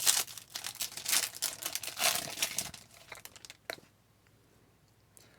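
Wrapper of a trading-card pack crinkling as it is torn open, for about three seconds, followed by a single click.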